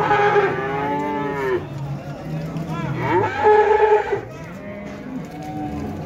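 Young Simmental heifers mooing: two loud, high calls, the first at the start lasting about a second and a half and a louder one about three seconds in, with fainter calls between.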